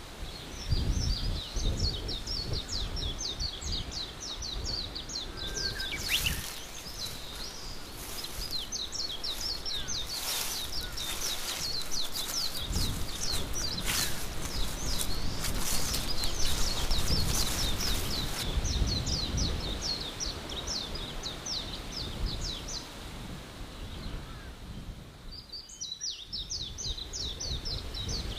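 Forest ambience: birds chirping in quick high trills almost without pause over a low wind-like rumble, with a stretch of rustling hiss through the middle.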